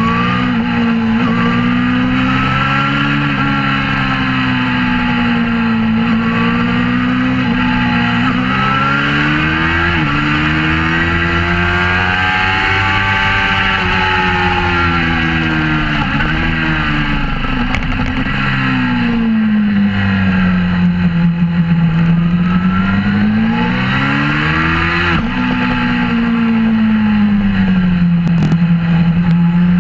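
Suzuki GSX-R600 K4 inline-four sportbike engine with a Werx aftermarket exhaust, heard from on board at track speed. The engine note climbs under acceleration and sinks when the throttle is rolled off, and it drops sharply a few times at gear changes.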